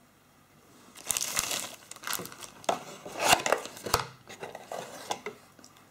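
Cardboard inner packaging of a mobile phone box being opened and handled by hand: irregular rustling and crackling that starts about a second in.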